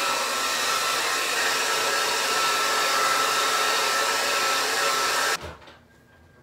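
Handheld hair dryer blowing steadily, a loud even rush of air with a thin whine running through it. It cuts off abruptly about five seconds in.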